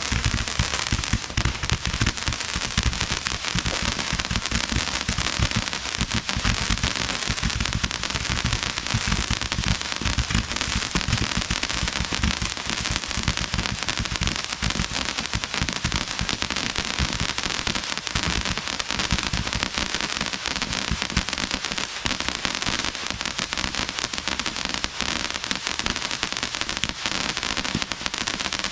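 Consumer barrage batteries firing: Roman candle barrages and a pearl cake shooting shots in a rapid, continuous stream of pops that overlap into a dense crackle, at an even pace throughout.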